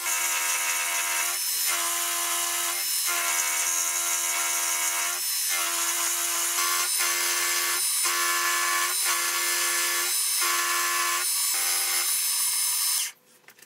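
Milling machine taking a roughing cut with an end mill through a metal block: a steady whine of the spindle and cutter with a hiss of cutting above it. It dips briefly about once a second and cuts off suddenly near the end.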